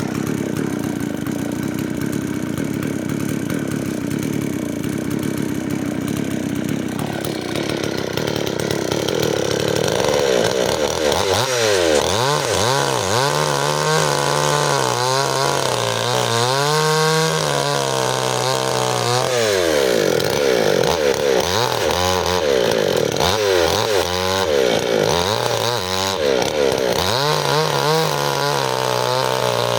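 Stihl two-stroke chainsaw running, with a steady, lower engine note for several seconds before it revs up. From about a third of the way in, its pitch repeatedly sags and recovers as the engine bogs under load, cutting firewood.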